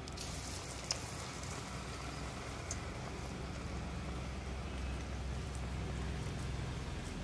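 Chana dal fritters frying in oil in a wok: a steady sizzle over a low steady rumble, with a couple of light clicks.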